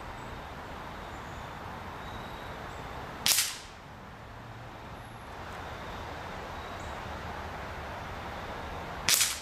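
Gamo Camo Rocket air rifle firing twice, about six seconds apart, each shot a sharp report that dies away quickly.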